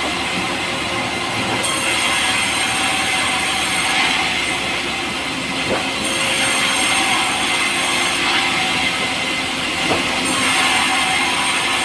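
Power saw running steadily as it cuts pulai, a light, soft timber, with a high hiss that swells and eases every couple of seconds.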